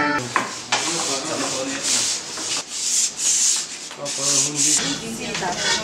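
Wooden pole scraping back and forth against a rough surface in repeated rasping strokes.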